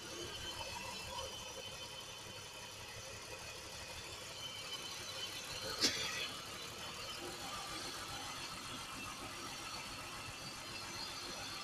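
Engine idling steadily, with one sharp click about halfway through.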